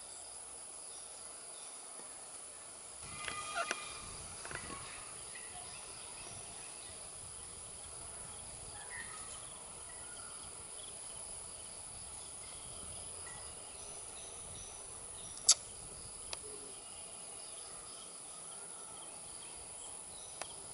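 Steady high-pitched insect drone, with a brief burst of distant bird calls about three seconds in and a single sharp click past the middle.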